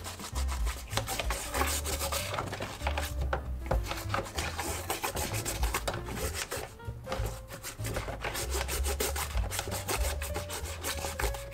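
A scrub brush's bristles scrubbing a woven bamboo basket: quick, repeated scratchy strokes, brushing gently.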